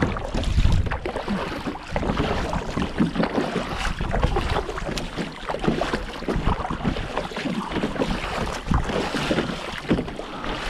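Kayak paddle strokes on alternate sides: repeated splashing of the blades and water washing along the plastic hull, with some wind on the microphone.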